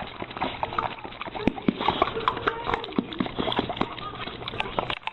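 A rapid, irregular run of clicks and knocks.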